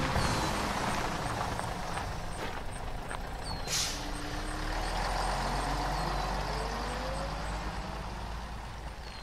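A heavy road vehicle running, with a short hiss of air about four seconds in and an engine note that rises in pitch a second or so later.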